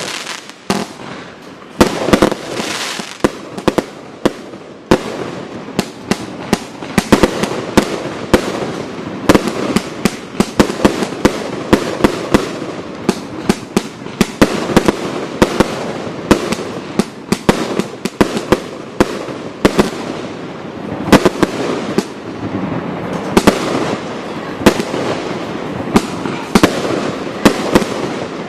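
Firework cake (multishot cakebox) firing a dense, uneven string of sharp bangs, several a second, over a continuous noisy rush.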